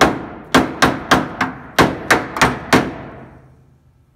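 Hammer blows on a chisel cutting the remains of an old rusted quarter panel off the car body's bottom flange. About nine sharp metallic strikes come in quick succession over the first three seconds, and the last one rings out and fades.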